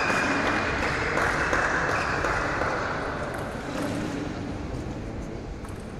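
Spectators cheering and clapping as a table tennis rally ends, dying down over about three seconds.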